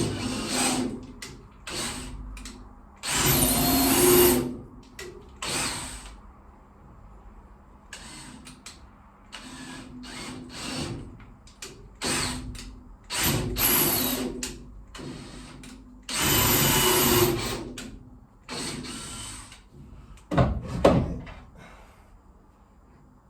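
Cordless drill-driver run in about ten separate bursts, each a second or so long, driving screws to fix timber battens, with a couple of heavy knocks near the end.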